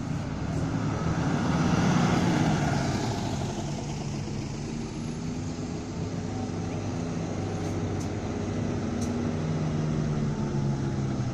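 City bus engines as buses pull out and pass close by. The sound swells to its loudest about two seconds in, then the buses run on at low speed with a steady engine hum.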